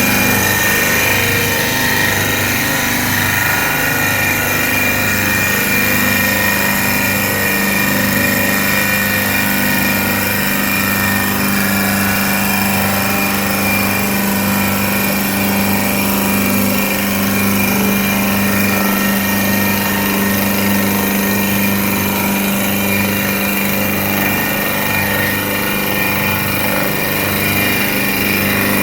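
CNC turning lathe running steadily: a constant machine hum with a lower hum pulsing at a regular rate, some higher steady whining tones and a wash of mechanical noise.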